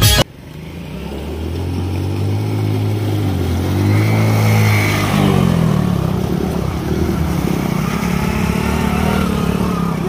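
Motor scooter engine running under load as it is ridden through a shallow stream, its pitch climbing over the first few seconds and dropping back about halfway through, with water splashing around the wheels.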